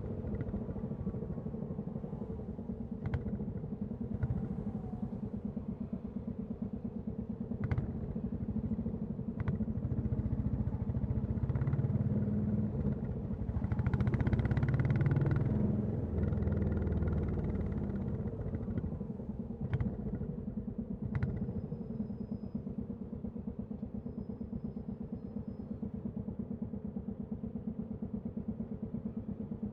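Royal Enfield Classic 350's single-cylinder engine and exhaust running with a steady, even pulse, swelling louder for a few seconds mid-way before settling back. A few sharp clicks are heard over it.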